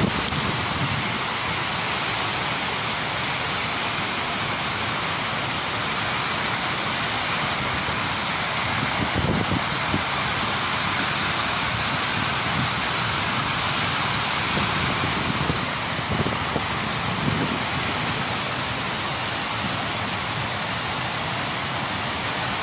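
Steady rushing of water spilling over a large stone fountain's rim, with a few soft low bumps near the middle.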